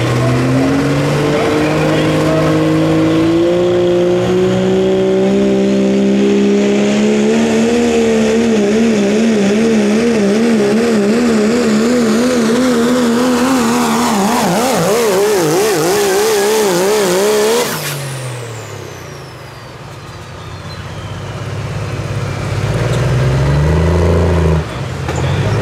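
Diesel pulling truck's engine at full throttle dragging a weight sled, its pitch climbing and then wavering rapidly while held high. About two-thirds through the throttle is let off: the engine note drops away and a turbocharger whistle winds down. A short rev near the end cuts off sharply.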